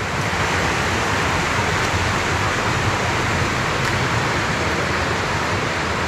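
River water rushing steadily over rocky rapids and small cascades, an even hiss without breaks.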